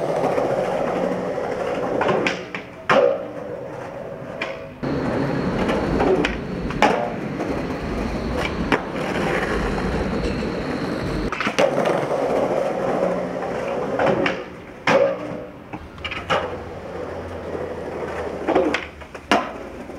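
Skateboard wheels rolling steadily over rough pavement, with several sharp clacks of the board hitting the ground.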